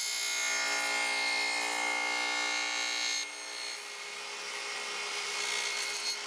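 Radial arm saw with a two-blade dado set running and cutting a quarter-inch test dado across a scrap piece of wood. A strong steady whine for about the first three seconds, then the sound drops to a lower, rougher running noise.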